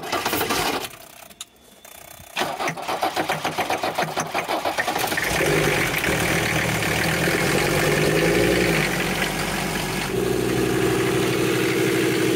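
A 1984 Mercedes-Benz five-cylinder turbodiesel being started cold after sitting for several months. The starter cranks it in a pulsing rhythm, pauses briefly, and cranks again. The engine catches about five seconds in and settles into a steady idle.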